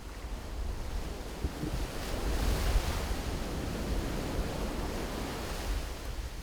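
Wind buffeting the microphone: a low, fluttering rumble under a rushing noise that swells for a few seconds in the middle.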